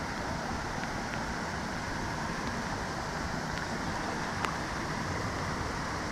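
Steady hiss of light rain falling on the lake surface around a canoe, with a few faint ticks of single drops.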